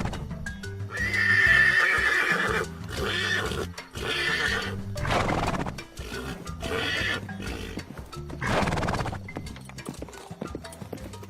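A horse neighing and whinnying several times, in long, wavering calls, the loudest about a second in. Near the end come sharp clip-clops of hooves. Background music runs underneath.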